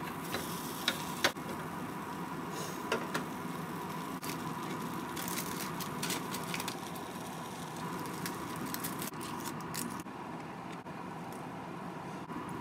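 Light clicks and taps of a spatula and chopsticks against a rectangular tamagoyaki pan and a plastic cutting board, a few at first and then in clusters about halfway and near the end, over a steady kitchen hum.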